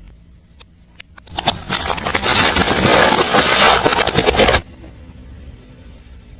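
A car tyre rolling over and crushing something crunchy: a few light clicks, then a dense run of cracking and crackling for about three seconds that cuts off suddenly.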